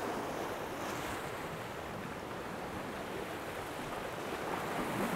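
Sea swell washing and breaking against rocks, a steady rush of surf that grows a little louder near the end.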